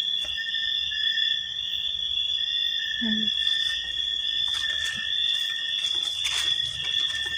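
Steady chorus of night insects: a continuous high-pitched drone with a lower steady tone beneath it. There are a few brief rustles of brushed foliage and a short low murmur about three seconds in.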